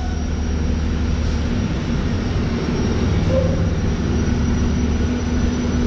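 Steady machinery hum and noise from feed mill load-out equipment, with a constant low drone that shifts slightly about a second and a half in.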